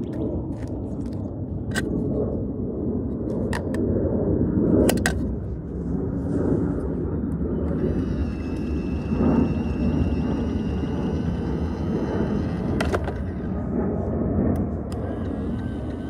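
A low, uneven rumbling noise throughout, with a few sharp plastic clicks and clacks as a toy garbage truck's lifting arms and plastic toy bins are handled.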